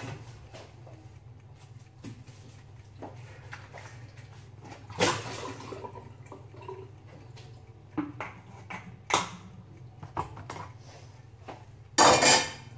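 Pots, pans and cutlery being handled while cooking: scattered knocks and clinks, with the loudest clatter near the end, over a steady low hum.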